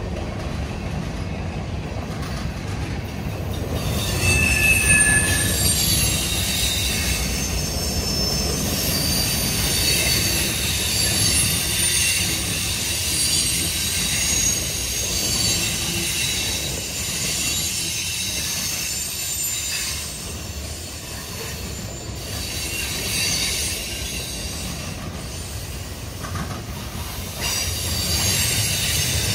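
Freight train cars rolling past at close range: a steady rumble of wheels on rail, with high-pitched wheel squeal starting about four seconds in, coming and going, easing off past the middle and rising again near the end.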